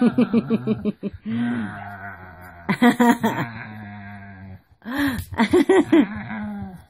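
A person's wordless vocalizing: laughter in quick pulses, a long drawn-out groan, then more laughter near the end.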